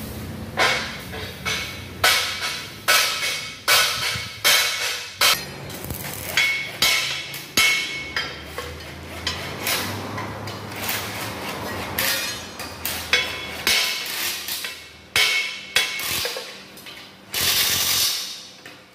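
Hammer blows on steel, about two a second, each ringing briefly like struck plate metal. Near the end they give way to a loud steady hiss lasting about a second.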